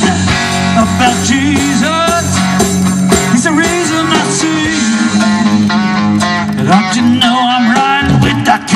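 Live blues-rock band of two electric guitars and drums playing loudly, with a lead line of bent, wavering notes over the rhythm.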